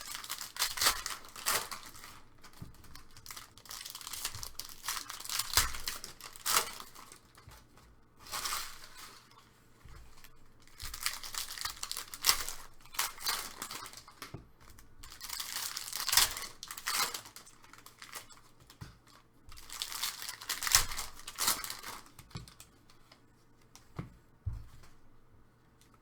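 Trading card pack wrappers being torn and crinkled open by hand, in repeated spells of a few seconds each with short pauses between, and a few light knocks as packs and cards are handled.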